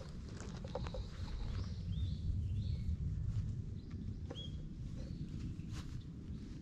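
Low, steady rumble and rustle close to the microphone as a hand strokes a cat's fur, with a few short, high bird chirps in the background.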